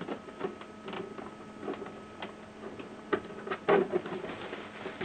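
Scattered plastic clicks and knocks from hands working an inkjet printer's print carriage and ink-supply tubing, the loudest knocks a little past the middle, over a faint steady hum.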